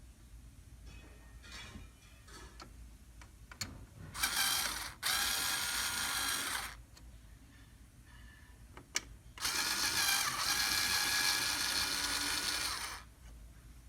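Small electric screwdriver running in two bursts of a few seconds each, the second longer, with a few sharp clicks between: screws being driven out to open the printer's power supply unit.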